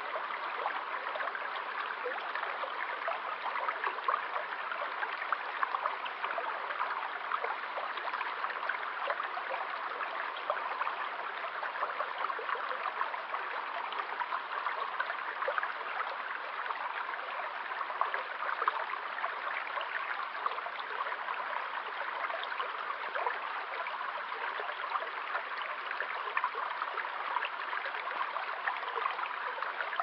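Small, shallow woodland stream flowing, a steady babbling rush of water flecked with many small splashes.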